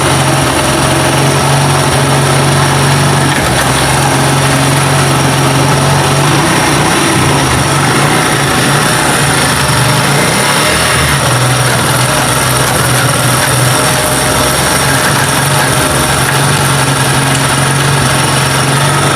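Honda CD 70's small single-cylinder four-stroke engine running steadily with a gear engaged, after a gearbox repair. It runs with no gear noise. Its steady note wavers for a few seconds around the middle.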